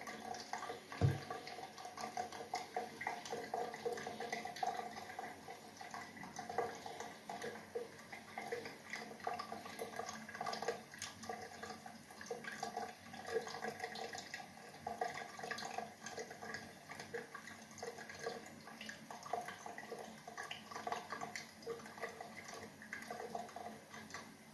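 Water splashing and dripping in many small irregular splashes, with a single sharp thump about a second in.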